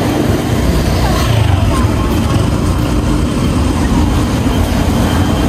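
Steady low rumble of vehicle engines, with a motor scooter riding past close by.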